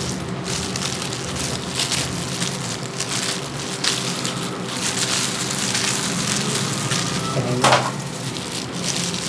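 Crinkling and rustling of thin disposable plastic gloves as hands comb and wind wet hair onto flexible perm rods, over a steady low hum.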